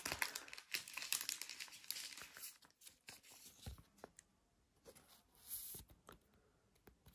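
Thin plastic card sleeves crinkling and rustling as a trading card is slid into them, a dense run of crackles over the first few seconds, then softer, with one more short rustle about five seconds in.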